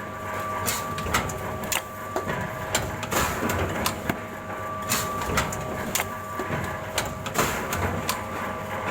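Three-knife book trimmer running: a clatter of sharp mechanical knocks, several a second and uneven, over a steady machine whine that cuts out and comes back a few times.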